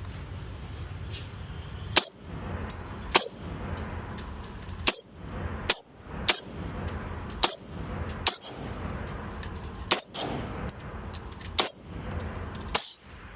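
Rifle gunfire, an AR-10 among it: about a dozen sharp shots at irregular spacing, several followed by a brief high ringing.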